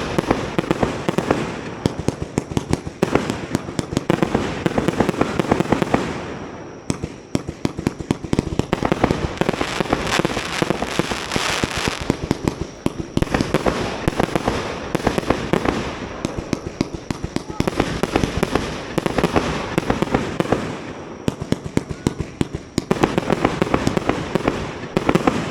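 Fireworks display: a dense, rapid barrage of crackling bangs and pops. It eases briefly about seven seconds in and again near twenty-one seconds, then picks up again.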